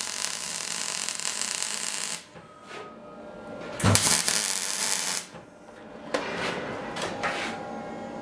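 MIG welder arc crackling in two runs: one for about the first two seconds, then a shorter one from about four to five seconds in that starts with a low thump.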